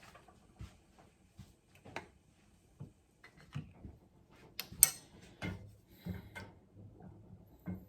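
Kitchen handling sounds: scattered light clicks and knocks of containers and utensils, with one sharp clack a little before five seconds in.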